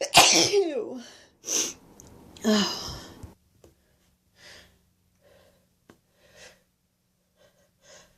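A woman sneezing three times in quick succession, the first with her voice falling away, followed by quieter sniffs and breaths. Her nose is runny.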